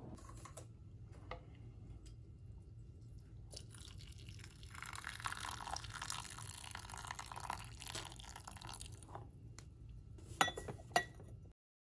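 Water poured from a kettle into a porcelain gaiwan of rolled oolong leaves, a steady pour lasting about four seconds, followed near the end by two sharp clicks.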